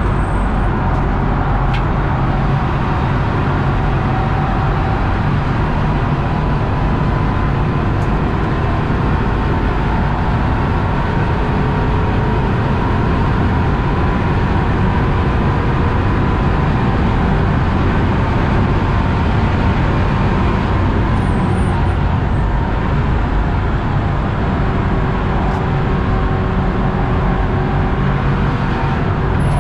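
Inside the cabin of a BMW 328i F30, its 2.0-litre turbocharged four-cylinder engine is running hard at track speed under steady road and tyre noise. The engine note rises and falls slowly in pitch.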